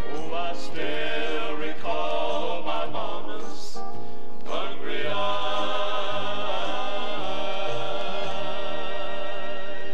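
Southern gospel male vocal quartet singing in close harmony over instrumental backing, ending on a long held chord with vibrato that fades out near the end.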